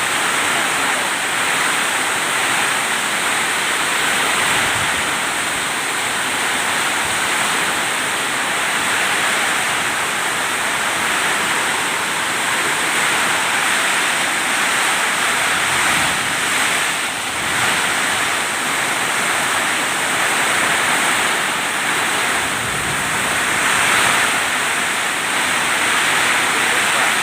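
Storm of heavy rain and wind: a loud, steady rushing that swells and eases, a little stronger near the end.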